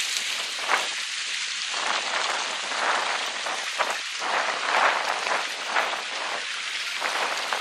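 Water running and splashing over rocks: a steady splashing hiss with irregular louder surges.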